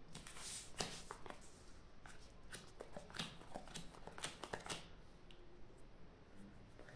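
Playing cards being dealt one by one onto a cloth-topped table, making faint, quick slaps and snaps of card on card. They come in a run over the first five seconds and thin out near the end.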